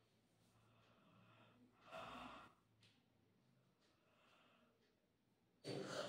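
A woman yawning. It is mostly near silence, with a faint breathy yawn about two seconds in; near the end a loud voiced yawn begins.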